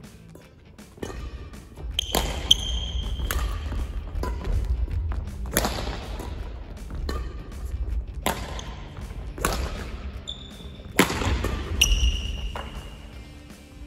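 Badminton rally: a string of sharp shuttlecock hits off racket strings about every one to two seconds, with sports shoes squeaking briefly on the court floor after several of them and dull footfalls underneath.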